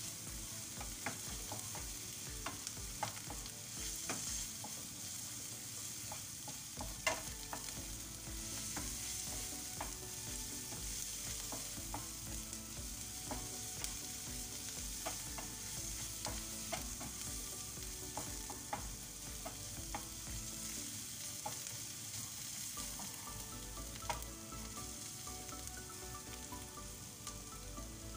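Chopped onions sizzling in oil in a frying pan as a wooden spoon stirs them, scraping and knocking against the pan, with the sharpest knock about seven seconds in.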